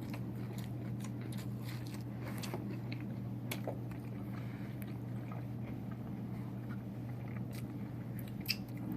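Chewing a mouthful of pizza with a crunchy crust: irregular crisp crunches, one louder near the end, over a steady low hum.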